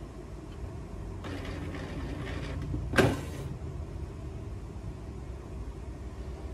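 Canon inkjet printer's mechanism running through its start-up routine: a motor whirs for about a second and a half, then a single sharp clunk comes about three seconds in, over a low steady hum.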